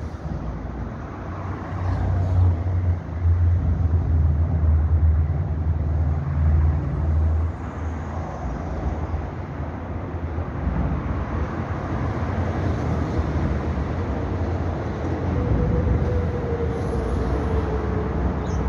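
A steady outdoor field-recording din of rumble and noise, with a heavier low rumble from about two to seven seconds in.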